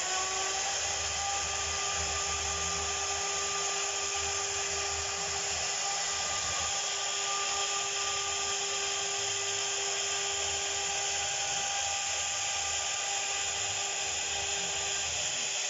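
CNC router spindle of a small ABT-6090-H machine winding up to speed, its whine rising briefly at the start and then holding a steady pitch, over a constant hiss.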